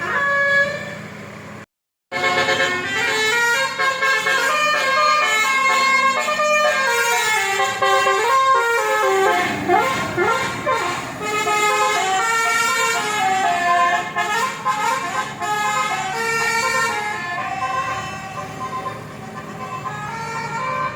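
Basuri telolet musical air horn on a bus playing a melody of shifting multi-note chords. The sound cuts out briefly about two seconds in, and around the middle the tones glide up and down like a siren.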